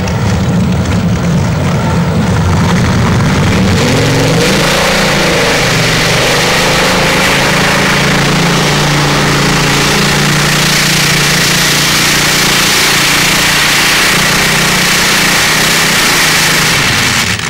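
Twin Rolls-Royce Griffon V12 aircraft engines of a 4.5-tonne modified pulling tractor rumble unevenly at low revs, rev up about four seconds in, and run hard and steady at full power, dragging the sled. They drop off right at the end as the run stops short, which the commentator puts down to clutch trouble.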